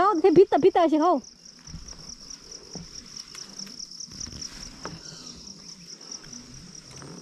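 Insects trilling in a steady, high-pitched, finely pulsing chorus.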